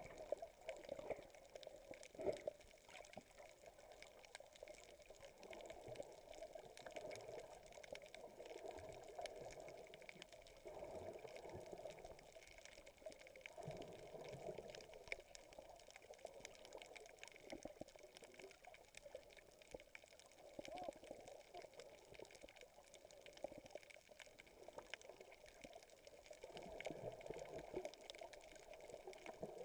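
Faint, muffled water sounds recorded by a camera held underwater: irregular sloshing and crackle, with no clear single event.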